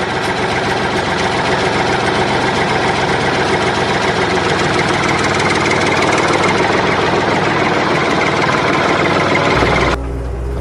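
Engine idling steadily with a rapid, even pulsing, cutting off suddenly near the end.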